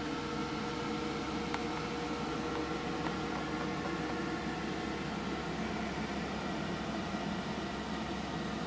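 Steady mechanical hum and hiss with faint steady tones, as from a fan or small motor running, with a couple of light clicks.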